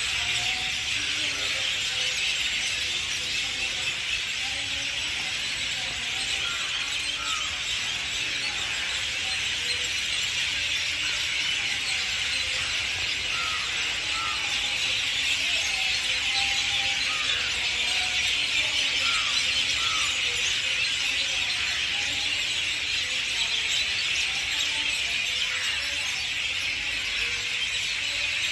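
A steady, high-pitched chorus of chirping wildlife among the trees, with short chirps scattered over it.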